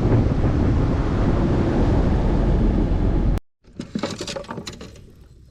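Loud, steady rushing of a boat under way, with wind on the microphone and the run of its motor; it cuts off suddenly about three and a half seconds in. Faint clicks and knocks follow.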